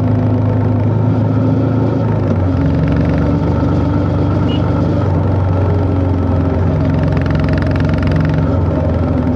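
Honda CB350 H'ness single-cylinder engine running under way on a ride. Its note drops a little about two seconds in and picks up again near the end.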